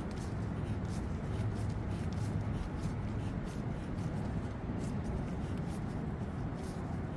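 A hand tool scraping over and over on a brass tubular tailpiece as it is worked and reamed out: short, irregular strokes, several a second, over a steady low hum.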